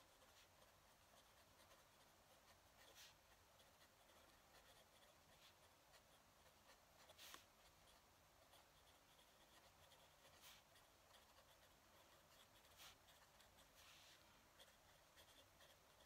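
Fountain pen nib writing across a paper pad, faint and continuous, with a few faint clicks now and then, the strongest about seven seconds in.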